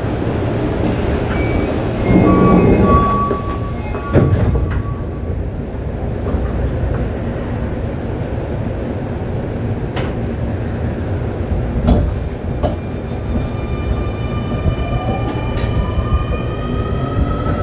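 Keio 9000 series train heard from on board: a steady rumble with a few sharp knocks, then, about three seconds before the end, the motors' whine starts and climbs in pitch in several parallel tones as the train accelerates.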